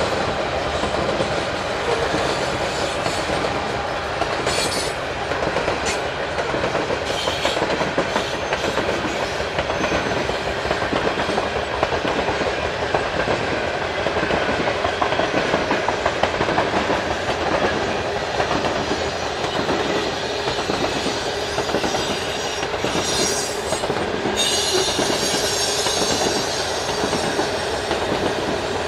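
Loaded covered hopper cars of a grain freight train rolling past: a steady rumble and clatter of steel wheels on the rails.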